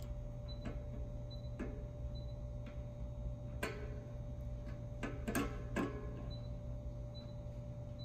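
Hands working on an air-compressor pressure switch and its wiring: a few light clicks and taps, the loudest cluster about five to six seconds in, over a steady low hum.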